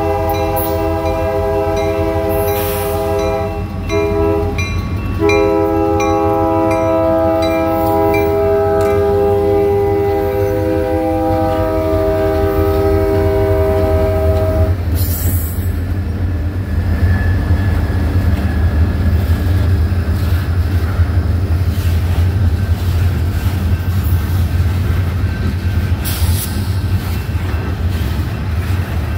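Diesel freight train at a grade crossing. The lead GP40-2LW locomotive's air horn blows a long chord, breaks briefly about four seconds in, then sounds again and stops about fifteen seconds in. Under it the locomotives' diesel engines rumble past, followed by the steady rolling clatter of boxcar wheels on the rails.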